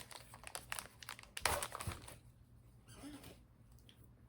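Plastic parts bag crinkling as kit pieces are handled and pulled out: a run of crackles for about the first two seconds, then quieter with a few scattered rustles.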